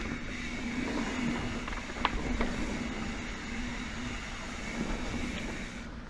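Mountain bike rolling fast along a dirt singletrack: tyre noise and wind on the microphone, with a steady buzz from the Industry Nine rear hub's freehub as the bike coasts. A sharp knock sounds about two seconds in.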